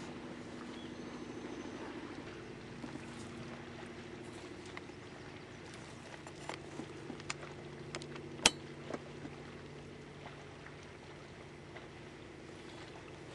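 Boat motor idling, a steady low hum, with a few small clicks in the middle and one sharp knock a little past halfway.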